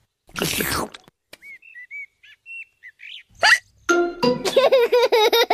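Cartoon sound effects: a short slurping gulp of juice about half a second in, then a run of small bird chirps. Near the end a cartoon voice comes in, running into the start of laughter.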